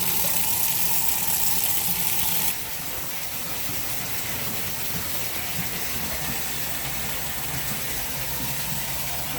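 Steady rushing, hissing noise that drops to a lower, steady level about two and a half seconds in, with a sharp click right at the end.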